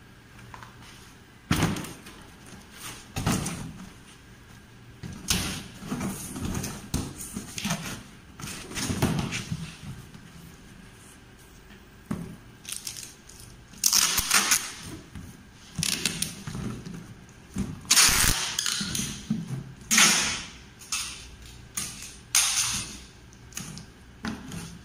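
Polypropylene hollow-sheet (corrugated plastic) panel being folded by hand into a box: irregular knocks, scrapes and the rasp of the flexing plastic sheet on a concrete floor. The loudest rasping bursts come about halfway through and again a few seconds later.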